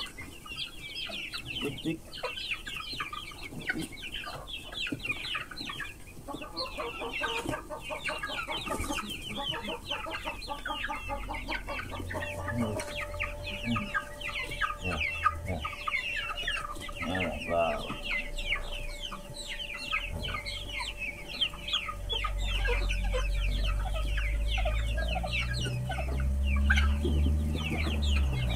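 A flock of young chickens cheeping and clucking without pause while they scramble for corn, a dense run of short high chirps. A low rumble grows in about three-quarters of the way through.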